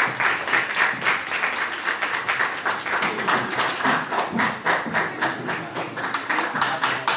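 Audience clapping, many hands beating steadily and closely together.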